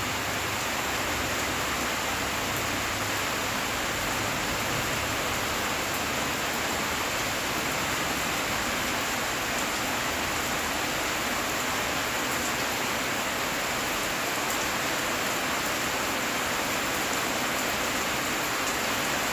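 Steady, even hiss with a few faint small clicks.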